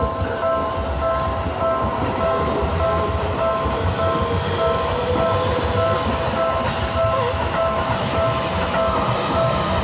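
A Seibu Ikebukuro Line train running past a level crossing, a steady rumble. Over it the crossing's warning bell rings on and on in a regular ding-ding beat.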